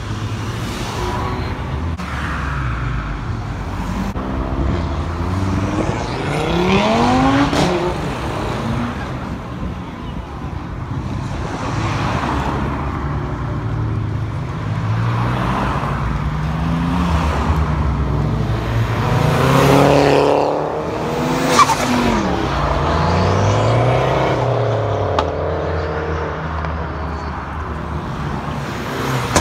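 Cars accelerating hard past one after another, their engines revving with pitch rising and falling as each goes by. The loudest passes come about seven and twenty seconds in, and a sharp crack sounds just after the second.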